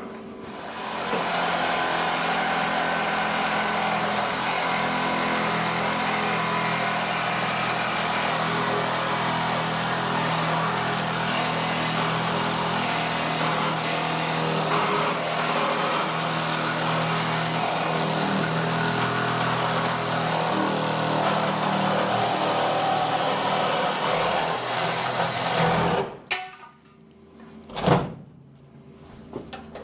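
Power saw cutting steel on a car's frame, running steadily and then stopping abruptly about 26 seconds in, followed by a few sharp knocks.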